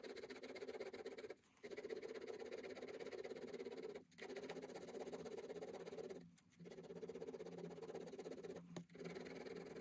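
Four-colour ballpoint pen scratching over sketchbook paper in fast back-and-forth hatching strokes, with short breaks about four times as the pen lifts.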